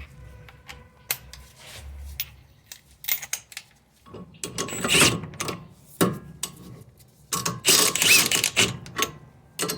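Hand tools and metal parts working on a car's wheel hub: irregular metallic clicks and clanks, sparse at first, then busier and louder in the second half.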